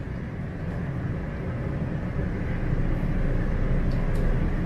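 Steady hum and rushing noise of a Toronto subway train standing at the platform with its ventilation running, growing slightly louder about two seconds in.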